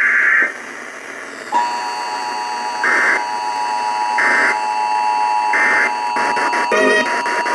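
Emergency Alert System test on FM radio. A burst of digital data screech ends about half a second in. About a second and a half in, the steady two-tone attention signal begins. Three short data-burst screeches sound over it, about one every second and a half.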